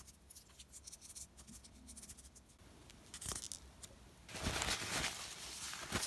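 Faint handling sounds of a small metal multi-tool being oiled: scattered light clicks and taps. From about four seconds in comes a steadier scratchy rustle.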